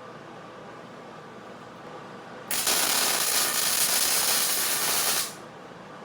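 Miller-Matic 140 wire-feed welder's arc running on steel: a loud, even hiss that starts abruptly about two and a half seconds in and cuts off sharply under three seconds later as the trigger is released.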